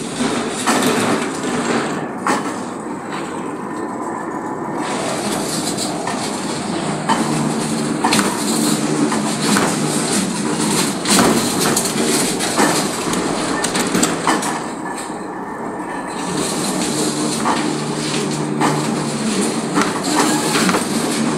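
Metal-spinning machine forming a large sheet-iron karahi pan: the belt-driven machine hums steadily as the steel roller presses and rides over the turning iron sheet, with frequent irregular metallic clicks and knocks.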